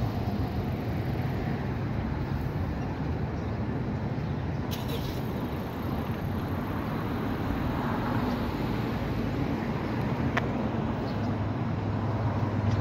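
Road traffic noise at a railroad crossing just after a train has passed, with a couple of sharp clicks. Near the end a car engine's low hum grows louder as vehicles start across.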